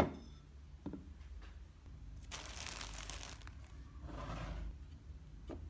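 A ceramic plate set down on a tabletop with a sharp clack and a brief ring, then a soft knock. About two seconds in comes a second of crinkly rustling, then a duller scrape as a glass jar is handled, and a light tap near the end.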